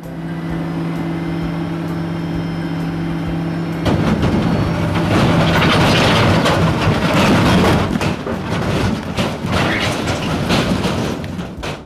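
Dump truck sound effect: a steady engine hum for about four seconds. Then a loud, rough rumbling noise takes over, swells, and fades near the end.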